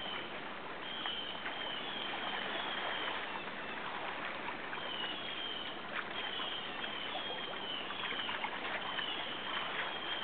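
Steady rushing of a shallow river flowing around wading anglers, with runs of short high chirps repeating above it.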